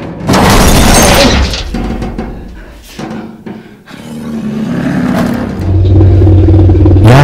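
Film soundtrack: a loud crashing, breaking burst about half a second in that fades over about a second, under tense music, with a low steady drone swelling near the end.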